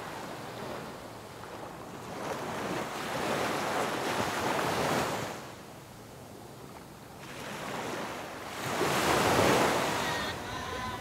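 Surf washing ashore: a rushing noise that swells and falls away, with one surge a few seconds in, a lull, and a louder surge near the end.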